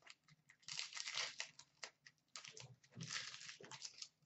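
Upper Deck hockey card pack wrapper crinkling and tearing in several short bursts as it is pulled open. It is a stubborn pack that is hard to open.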